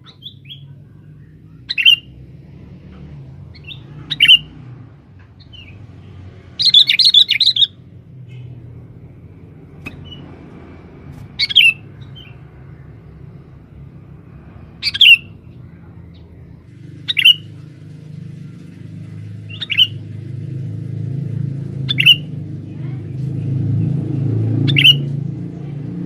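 Male sooty-headed bulbul (kutilang) calling: short, sharp call notes repeated every two to three seconds, with one longer chattering phrase about seven seconds in. The calls sit over a low rumble that grows louder toward the end. These are a male's calls, used as a lure to provoke wild males.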